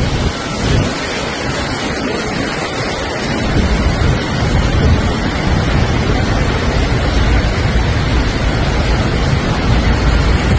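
Steady heavy rush of Niagara Falls' falling water, with wind buffeting the microphone in uneven low gusts.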